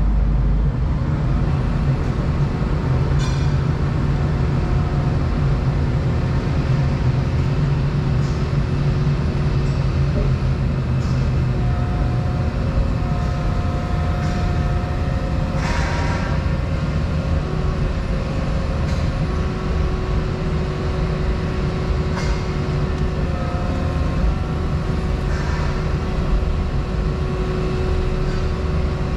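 Volvo 235EL excavator's diesel engine and hydraulics running under work, heard from inside the cab: a steady low drone with hydraulic whine tones that come and go. A few short knocks, the loudest about halfway through.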